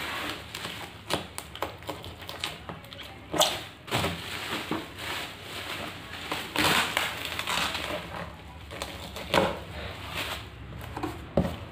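Bubble wrap and plastic bag crinkling and rustling as they are pulled off a boxed PC case. Cardboard scrapes and several sharper knocks come through the rustle.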